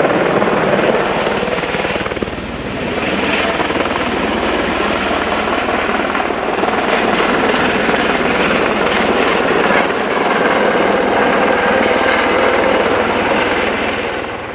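Helicopter flying overhead, its rotor chopping steadily and loudly, fading near the end.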